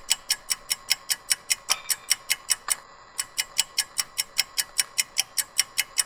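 Rapid, even ticking from a ski-lift boarding-gate signal, about six ticks a second, with a short break about halfway through.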